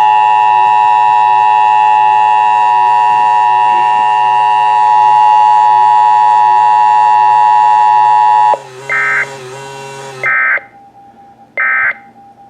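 Emergency Alert System attention signal: a loud, steady two-tone alarm held for about eight and a half seconds, then stopping. Three short, harsh digital data bursts follow about a second and a half apart.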